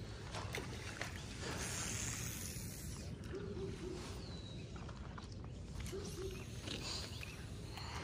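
Quiet outdoor background: a steady low rumble of wind on the microphone, with a few short, faint sounds that are likely distant voices.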